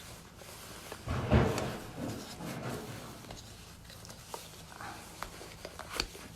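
Rummaging and handling noises at a workbench: a short scraping rustle about a second in, then scattered light clicks and knocks. The grinder is not running.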